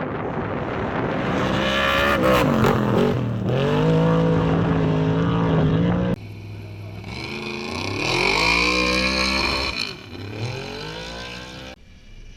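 Off-road race car engine at full throttle, revving up and dropping with gear changes as the car speeds past. There are two separate passes, with an abrupt cut between them about halfway.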